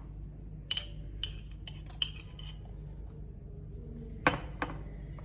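Metal spoon clinking against small glass spice jars and the mixing bowl as spices are scooped out and sprinkled over raw chicken: a scattering of light, sharp clinks, the loudest about four seconds in.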